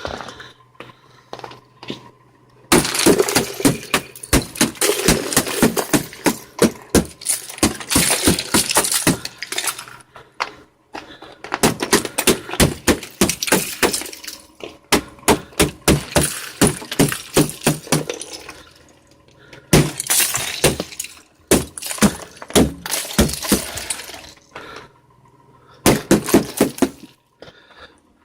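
Thick ice sheets on a car being chipped and scraped off, breaking up in rapid strokes. The strokes come in several long runs with short pauses between them, starting a little over two seconds in.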